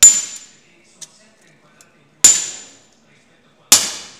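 Hand hammer striking a copper sheet flower on a wooden stump: three sharp metallic blows, each with a brief high ring that fades, the second about two seconds after the first and the third a second and a half later.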